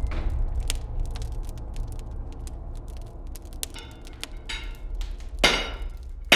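A low fire rumble with scattered crackles, slowly fading. From about four and a half seconds in, a hammer strikes steel on an anvil, each blow ringing: a lighter one, then a loud one about a second later, and another just at the end.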